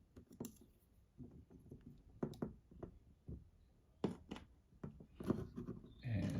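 Scattered light clicks and taps of small metal parts and a hand tool being handled while a Kizer Domin 2 liner-lock folding knife is put back together, with pairs of clicks about two seconds in and again about four seconds in.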